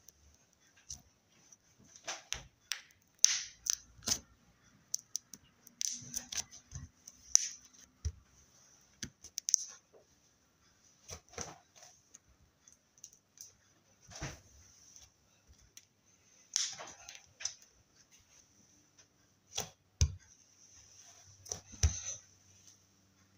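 Slime being played with: irregular sticky clicks and pops, some sharp, with short quiet gaps between them.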